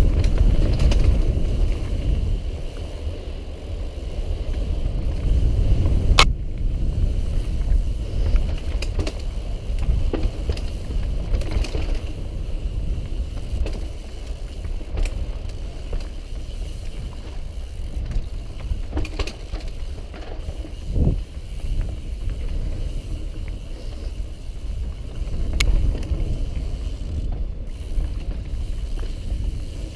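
Mountain bike riding fast down dirt singletrack, heard from a camera on the rider: a continuous rumble of wind on the microphone and tyres on dirt, broken by a few sharp clicks and rattles from the bike over bumps.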